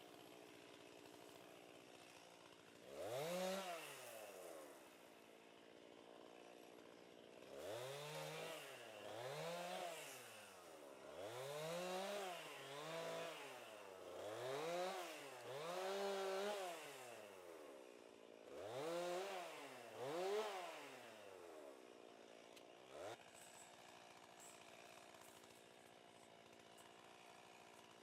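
Two-stroke chainsaw idling, then revved up and down about nine times in quick succession, each rev a rising and falling whine, before dropping back to idle.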